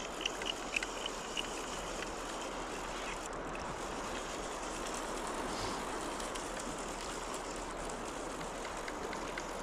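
Steady rushing of flowing river water, with a few faint clicks in the first second or so.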